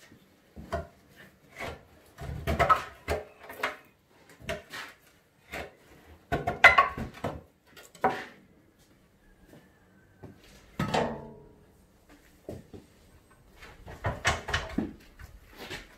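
Steel tyre lever scraping and knocking against a rusty steel wheel rim in irregular short bursts as the bead of an old rear tractor tyre is prised off.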